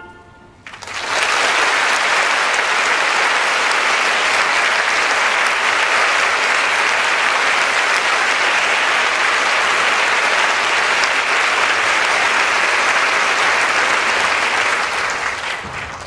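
Audience applauding steadily, starting about a second in as the orchestral music ends and dying away near the end.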